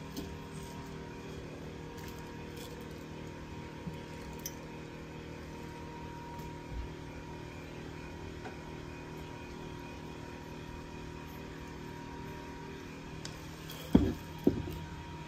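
Two sharp knocks about half a second apart, near the end, as a ceramic mug is set down on a folding table, over a steady low hum.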